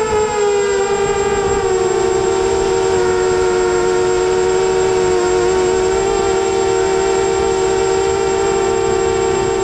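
FPV quadcopter's electric motors and propellers whining, heard from the drone's own onboard camera: a steady buzz of several close pitches that eases down slightly at the start and then holds level, over a low rush of noise.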